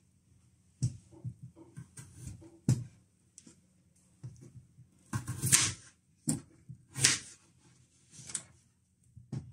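Kitchen knife cutting peeled raw potatoes into chunks on a wooden chopping board: irregular knocks of the blade on the board, with a few longer crisp slicing sounds through the potato and the handling of the pieces.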